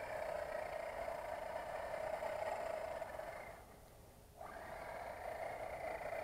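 Traxxas Slash 4x4 RC truck's Velineon brushless motor and drivetrain whining steadily as the truck drives across ice. A little past halfway the whine fades almost away, then cuts back in sharply about a second later.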